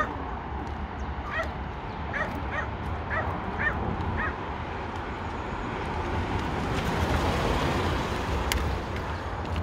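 A small dog giving about eight short, high-pitched cries over the first four seconds. In the second half a broad rush of noise swells and fades, over a steady low rumble.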